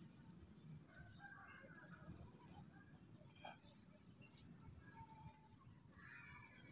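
Quiet outdoor ambience with faint, scattered bird calls, heard about a second in and again in the second half, under a thin steady high-pitched tone.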